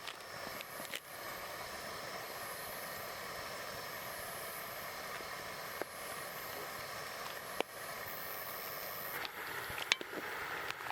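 Wood campfire crackling over a steady hiss, with a few sharp pops, most of them near the end.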